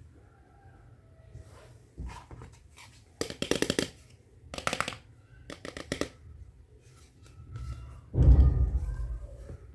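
Hard plastic toy kitchen pieces being handled: a few short plastic clacks and rattles in the middle, then a louder dull thump about eight seconds in.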